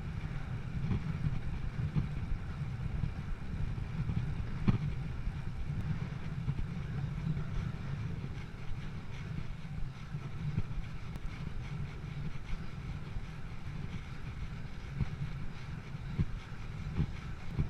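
Wind rumbling on the microphone during a bicycle ride: a steady low buffeting with a few faint knocks.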